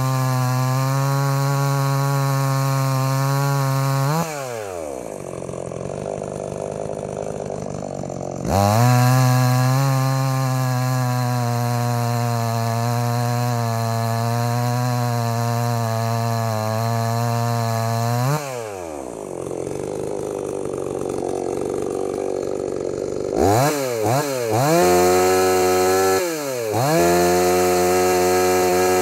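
MTM 62 SX two-stroke chainsaw cutting through a log at full throttle, steady under load. Its revs drop away about four seconds in, then come back up for a second long cut from about eight to eighteen seconds. After another drop it idles, and near the end the throttle is blipped several times with the bar out of the wood.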